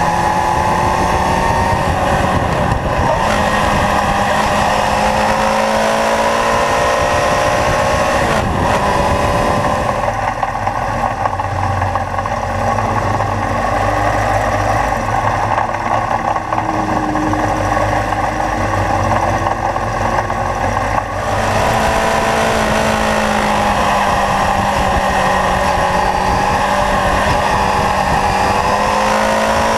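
Kawasaki Zephyr's air-cooled inline-four engine under way through bends, its pitch rising and falling with throttle and gear changes, with wind rushing over the microphone. For about ten seconds in the middle the engine note is lower and steadier, and near the end it rises steadily as the bike accelerates.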